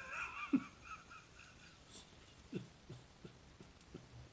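A man laughing: a high, wheezy squeal in the first second, then a run of about five short, breathy chuckles.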